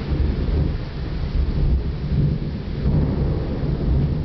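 Rolling thunder, a long low rumble that swells and eases, over steady heavy rain.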